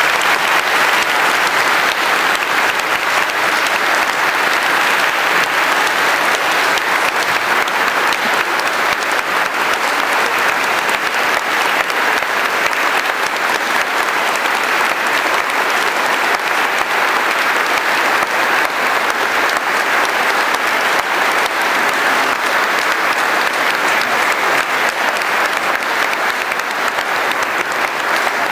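A congregation applauding steadily, many people clapping at once in a large reverberant cathedral.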